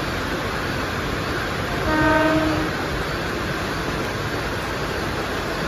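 Mumbai suburban local (EMU) train's horn sounding once, a short single-note blast of under a second about two seconds in, over a steady hiss of heavy rain and train noise.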